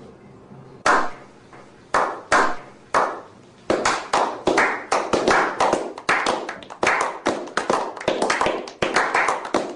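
A small group of men slow-clapping: a few single, spaced claps at first, which speed up into steady applause about four seconds in.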